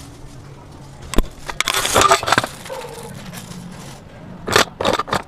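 Pieces of white slate clay tipped from a plastic bag into a stainless steel bowl, clattering against the metal and each other. A sharp knock comes about a second in, then a dense clatter, and another burst of clicks near the end.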